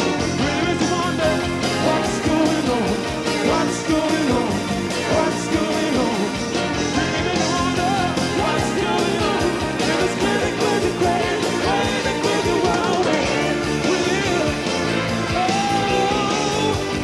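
Rock band playing live, with a singing voice over the band.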